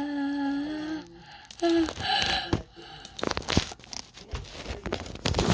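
Crackling, rustling handling noise and a few sharp knocks as fingers rub and grip a phone close to its microphone, after a short held hum at the start.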